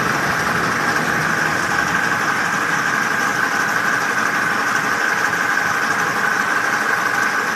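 Toyota BJ40 four-cylinder diesel engine idling steadily.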